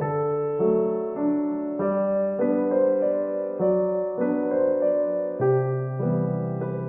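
Background piano music: a gentle piece of sustained notes and chords changing about every half second.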